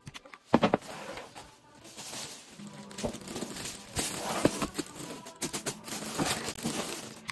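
Thin plastic shopping bag rustling and crinkling as hands rummage through it, with sharp crackles and a loud burst of them about half a second in.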